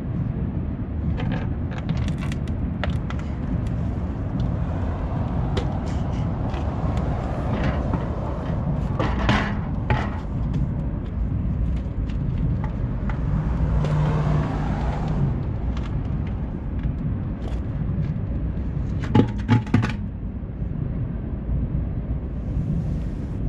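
Work on a car's front wheel as it comes off: scattered metal clinks, knocks and scrapes of tools and parts over a steady low hum, with a short run of a power tool about two-thirds of the way in and a few sharp knocks near the end.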